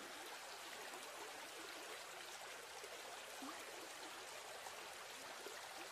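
Faint, steady rush of a shallow stream flowing over rocks.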